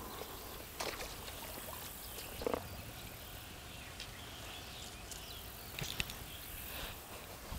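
A few brief splashes and sloshes in shallow water as hands grab a large longnose gar, over a faint steady outdoor hiss.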